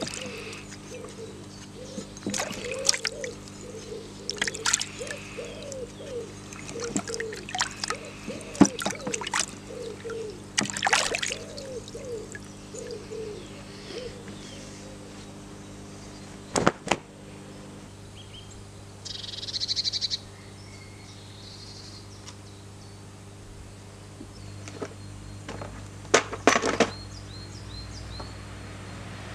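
Water sloshing and splashing in a plastic washing-up bowl as a Cold Steel Trail Hawk's steel head is rinsed by hand, with occasional knocks of the head against the bowl. A few sharp knocks near the end.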